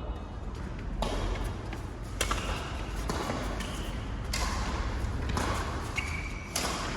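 Badminton rally: sharp racket hits on the shuttlecock, four of them about one to two seconds apart, over the general noise of the hall.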